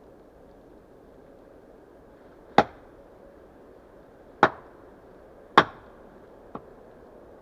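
Axe chopping into wood: three hard strokes about a second or two apart and a lighter fourth one near the end.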